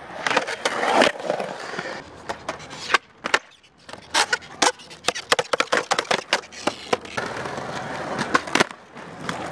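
Skateboards rolling on smooth concrete, a steady rolling noise broken by many sharp clacks as boards pop, land and hit the concrete, with a busy run of them midway through.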